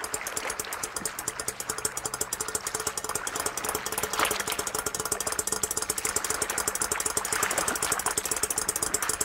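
Hand-turned swing footbridge's turning mechanism clattering in a rapid, steady run of knocks as the span swings. It gets slightly louder, with a stronger clatter about four seconds in.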